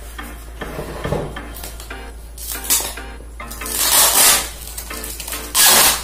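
Plastic stretch wrap and packing tape on a cardboard box being cut with a knife and torn away: a few loud ripping hisses, the longest about four seconds in and the loudest near the end, over faint background music.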